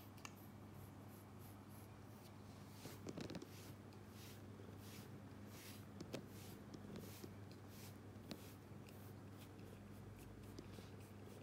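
Faint, repeated rasping strokes of a nekojasuri, a cat grooming brush shaped like a nail file, drawn through a cat's fur, over a steady low hum.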